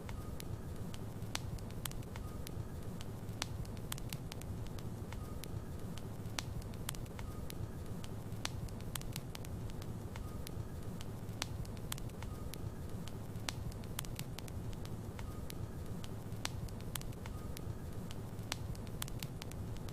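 Wood logs burning in a fireplace: a steady low rumble of flames with frequent, irregular sharp crackles and pops.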